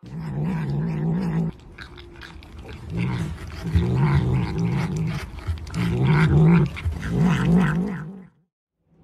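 Tabby cat growling over food while licking at an ice cream cup held in its paws: low, wavering grumbles in stretches, with small clicks in between. The growling breaks off about a second and a half in, resumes, and stops shortly before the end.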